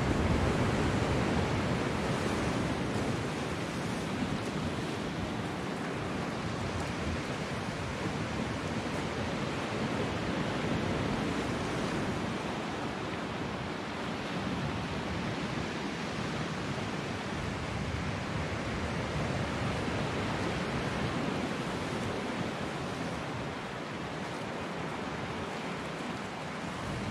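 Sea surf washing over a rocky shoreline: a steady rushing wash of breaking waves, a little louder in the first couple of seconds.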